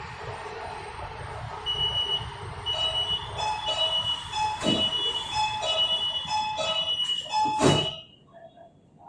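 Metro train door warning chime: a two-pitch electronic beep, high and low tones alternating and repeating for about six seconds over the car's steady hum, then one loud thump as the doors shut, after which it goes almost quiet.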